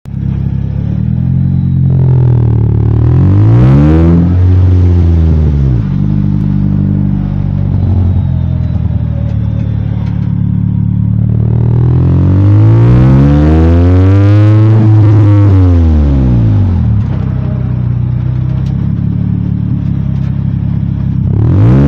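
Car engine idling with a deep steady note and revved twice, the pitch rising and falling back over a few seconds each time: about two seconds in and again around twelve seconds in. A third rev starts at the very end. Heard from inside the car's cabin.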